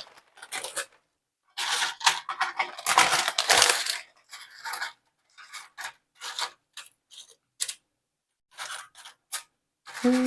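Tortilla chips crackling and clattering as they are laid out on a parchment-covered pan. The crackling comes in dense bursts over the first few seconds, then thins to scattered light clicks.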